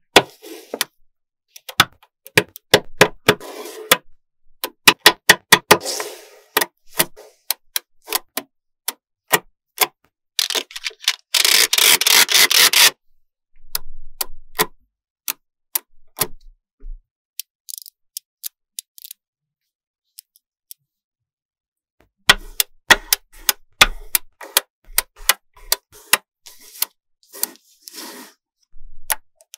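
Small magnetic balls clicking sharply as slabs of them are snapped together and set down, with a couple of longer stretches of dense rattling as the balls rub and shift against each other. The clicks thin out for several seconds past the middle.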